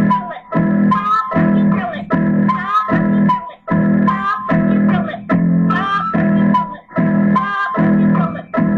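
Music: a guitar-led track with a steady, repeating beat.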